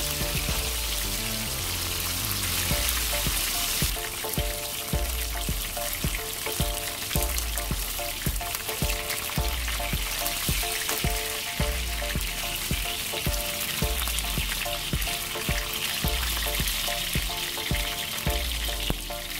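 Flour-and-starch-coated pork belly pieces shallow-frying in about 1 cm of cooking oil in a pan over medium heat, sizzling steadily.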